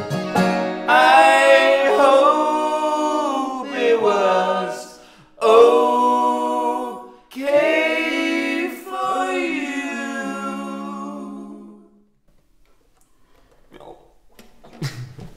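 Singing the closing phrases of a song with little or no instrument behind it, in long held notes. The last note fades out about twelve seconds in, and after that only faint small shuffles are left.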